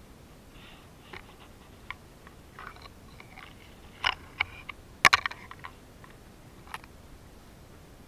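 Dry leaf litter crackling and rustling under hands close to the microphone: scattered small crunches, with a louder cluster of crackles about four to five seconds in.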